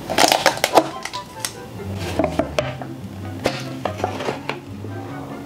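Crinkling and crackling of instant cup-noodle packaging handled up close: a seasoning sachet pulled off the lid and the cup's lid peeled back, in irregular clusters of sharp crackles. Background music with a steady bass line plays underneath.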